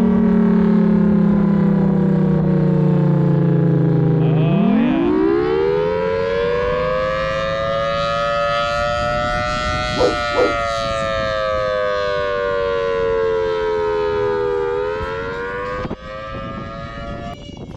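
A large outdoor siren, called the world's loudest siren, wailing: its pitch slides down, winds sharply back up about four seconds in, sags slowly, rises once more, then cuts off near the end.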